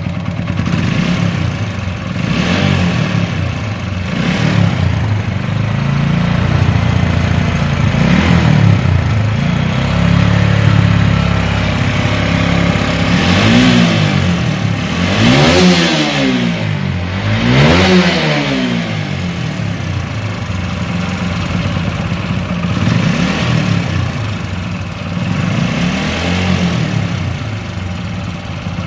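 TVS Apache RTR 4V motorcycle's single-cylinder engine running at idle and being revved up and down several times, with three sharper revs about halfway through. The bike suffers from a noise the owner likens to something breaking inside the engine.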